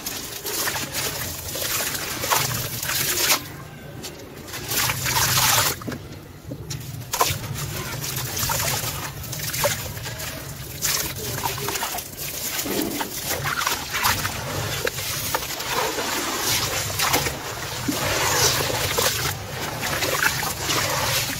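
Wet sand-cement chunks crumbled by hand over a tub of water: gritty crumbling with pieces dropping and splashing into the water, and water trickling from the hands. Near the end, hands slosh and swirl the muddy water.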